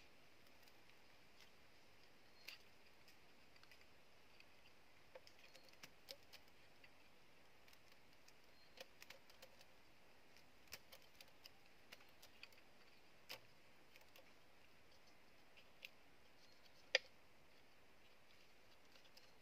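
Scattered light clicks and taps of bamboo pieces being handled and fitted together while a bamboo tube trap is assembled, with one sharper click near the end, over a quiet background.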